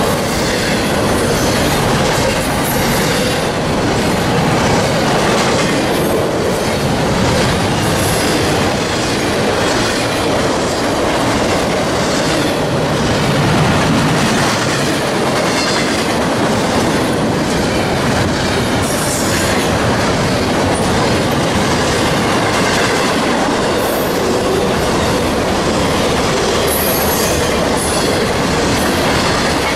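Intermodal freight train's double-stack well cars rolling past close by: a steady, loud rumble and clatter of steel wheels on the rails. A few short, high wheel squeals come in the second half.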